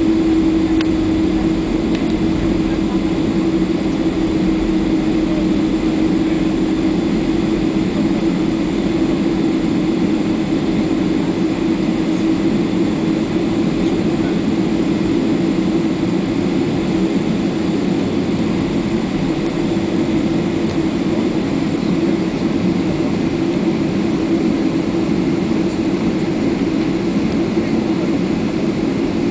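Boeing 767-300's twin jet engines heard from inside the cabin, a steady hum with a strong low drone, as the airliner rolls on the ground.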